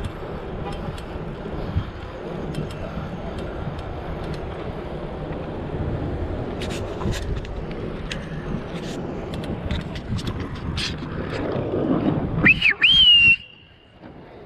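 Wind and road noise from a bicycle ride, with scattered clicks. Near the end, a loud whistle: two quick swooping notes, then a held high note that cuts off abruptly.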